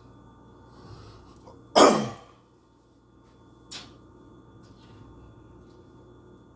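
A person coughs once, loud and sudden, about two seconds in, with a brief fainter sound about two seconds later; the cough comes from someone still getting over an illness.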